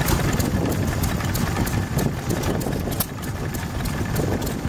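Small vintage stationary engine running steadily, its exhaust beating at roughly four pulses a second.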